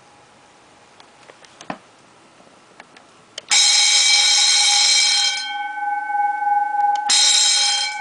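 An electric vibrating alarm bell, switched on by a digital timer, rings loudly for nearly two seconds and stops with its gong ringing on. It starts again for about a second near the end. A few faint clicks come before the first ring.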